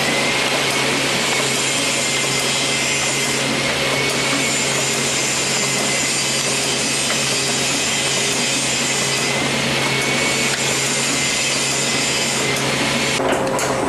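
Packaging machine running with a steady rushing hiss, a faint high whine and a low hum. Near the end the clicking of its conveyor mechanism comes back.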